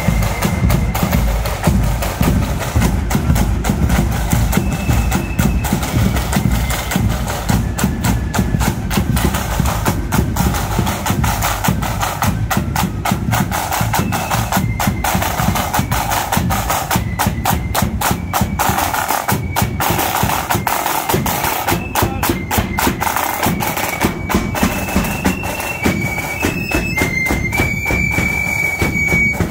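Marching flute band playing: flutes carry a tune over rapid side-drum strokes and a steady drum beat.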